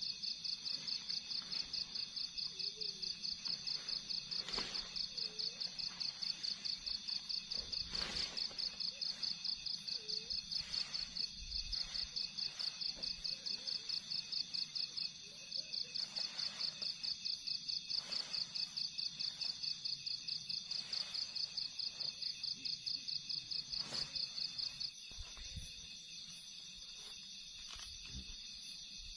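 Crickets chirping in a rapid, even pulse that stops about 25 seconds in. A few soft knocks and rustles are heard over it.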